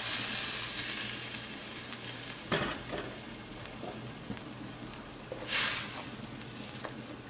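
Blended tomato and cilantro sauce poured into a hot clay cazuela of browned beef, sizzling and hissing as it hits the pan, the sizzle dying down over the first second or two. A knock about two and a half seconds in and a brief hiss about five and a half seconds in.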